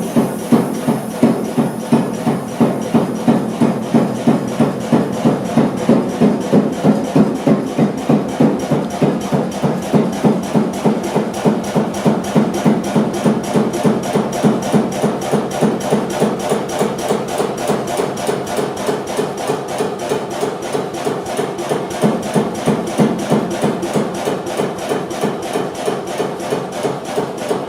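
Kromhout HS2 single-cylinder, low-speed diesel stationary engine running steadily, with an even knock at about three beats a second.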